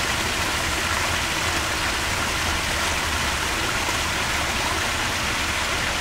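Small rock waterfall splashing steadily into a garden pond.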